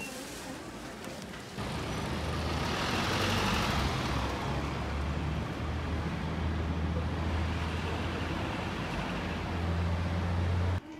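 Street traffic with a bus engine running close by: a steady low engine drone that gets louder about a second and a half in, with a swell of tyre and road noise as a vehicle passes a few seconds in. It cuts off suddenly near the end.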